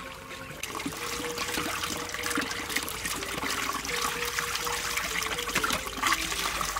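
Water splashing and trickling, busier and louder after the first second, with faint background music underneath.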